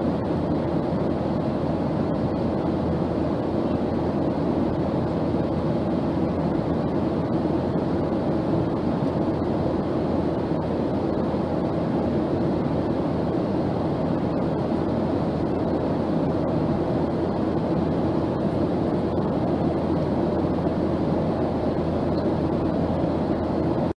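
Steady airplane noise: an even rushing drone with a low steady hum in it.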